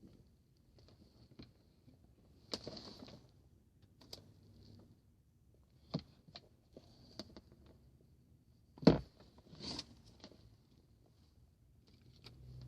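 Handling noise of scattered clicks and taps with brief rustling, the loudest a sharp knock about nine seconds in.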